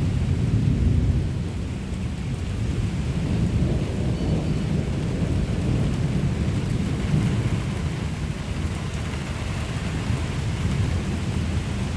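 Steady rain in a thunderstorm, under a continuous low rumble with no sharp thunderclaps.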